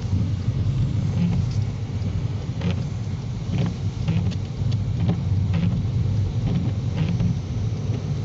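Steady low rumble of a car driving, heard from inside the cabin, with light, irregular ticks over it.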